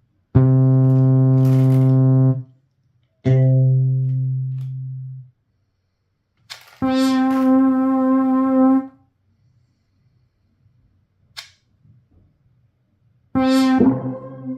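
Preset sounds from the Maschine Drift Theory expansion auditioned one at a time: four single pitched synth or sampled-instrument notes, each held about two seconds with short silences between. The second note fades out, and the last trails off in repeating echoes.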